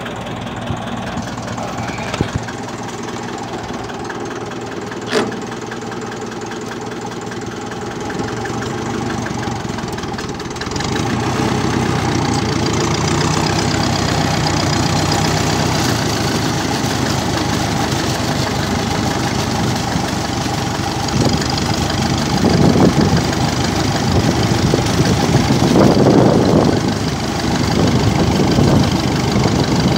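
Massey Ferguson TEF-20 tractor's four-cylinder diesel engine running, first ticking over at idle, then louder about ten seconds in as the tractor pulls away and drives along a gravel road, with the engine rising and falling in strength near the end.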